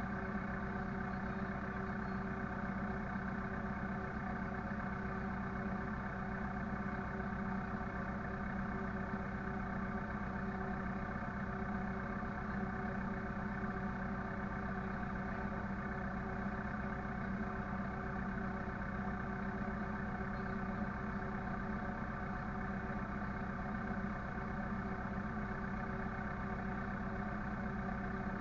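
Engine running at a steady speed, a constant even hum with no revving or change in pitch.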